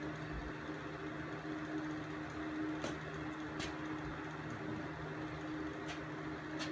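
Steady hum of a small electric motor running, with four faint light ticks in the second half.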